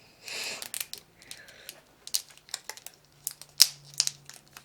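Plastic toy packaging being opened by hand: a short tearing rip near the start, then scattered crinkling rustles and sharp plastic clicks.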